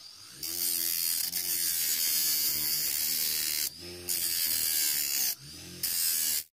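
Bench grinder grinding a pointed steel hammer head: three spells of harsh, high-pitched hissing as the steel is pressed against the abrasive wheel. In the short gaps between them, as it is lifted off, the grinder motor's steady hum comes through. The sound cuts off suddenly near the end.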